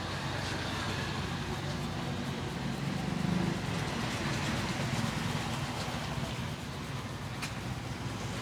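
Steady roadside traffic noise: a low rumble of passing vehicles, swelling briefly about three seconds in.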